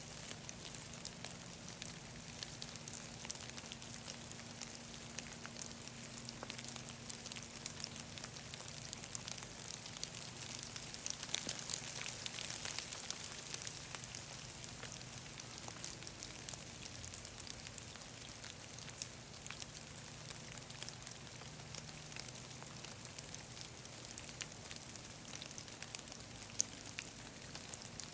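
Rain falling in woodland: a steady patter of countless small drops, growing a little heavier about halfway through.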